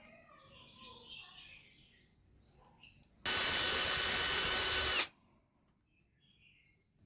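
Small handheld power drill run in one burst of about two seconds, switching on and off abruptly at a steady speed.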